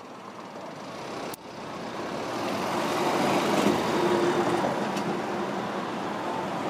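Street traffic noise, a steady rumble and hiss that builds up over the first few seconds and then holds, with one sharp click about a second and a half in.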